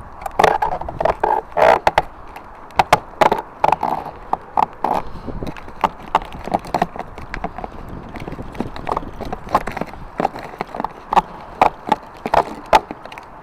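Irregular knocks, clicks and creaks of an old gutter section being worked loose and taken down from its brackets, busiest in the first few seconds.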